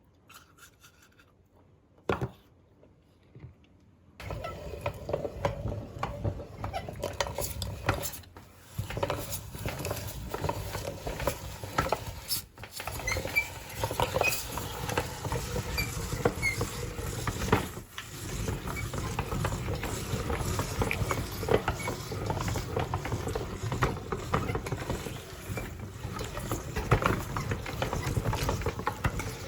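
Meat grinder crunching and grinding a frozen ice-cream finger: a dense, crackly grinding noise starts about four seconds in, after a few isolated clicks, and runs on with a few brief dips.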